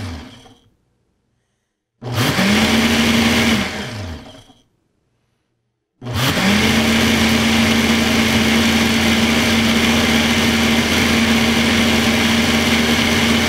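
Ninja Smart Screen blender running its preset Smoothie program on a cup of frozen-fruit smoothie, pulsing: the motor winds down to a stop at the start, spins up again about two seconds in, runs for under two seconds and winds down, then spins up a third time about six seconds in and keeps running steadily.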